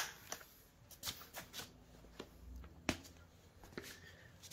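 Hands handling a 1/5-scale petrol RC truck: about half a dozen scattered, separate clicks and light knocks of its parts being moved.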